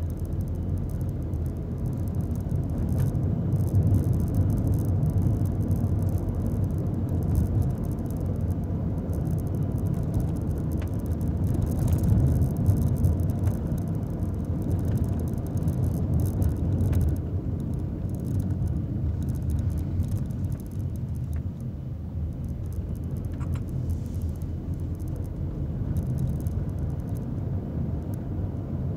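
Nissan Magnite Turbo CVT heard from inside its cabin while driving: a steady low rumble of engine and road noise that swells and eases slightly with speed, with a few faint knocks.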